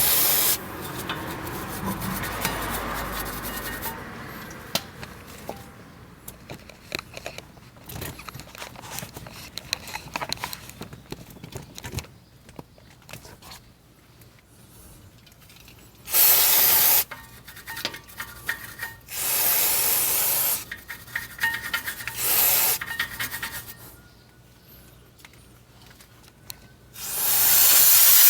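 Aerosol brake cleaner sprayed onto brake parts in about five short hissing bursts, with a brush scrubbing the parts in between.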